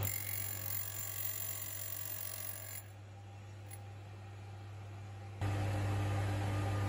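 Schaublin 102 lathe set up for wheel cutting, its cutter spindle motor running with a steady deep hum while it cuts the teeth of a brass clock wheel. The sound drops in level abruptly near the start and again about halfway through, then the louder hum returns about two-thirds of the way in.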